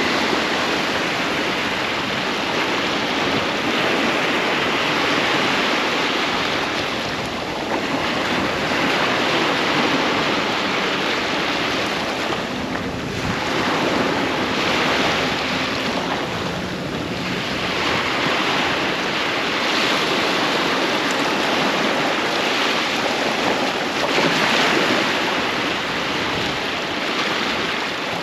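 Ocean surf breaking and washing ashore in a continuous rush that swells and eases every few seconds.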